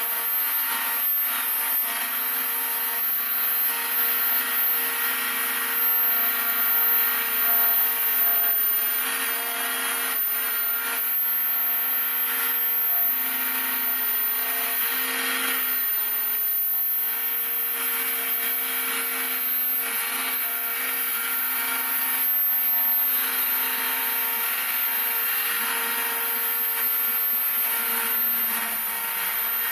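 Homemade CNC router running and milling out wing ribs: a steady spindle whine under a cutting noise that swells and eases as the bit moves through the work.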